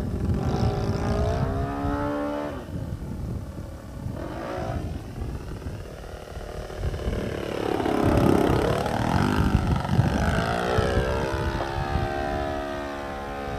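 Radio-controlled aerobatic plane's motor and propeller running in flight, the pitch rising and falling with throttle changes and as the plane passes, over a steady low rumble.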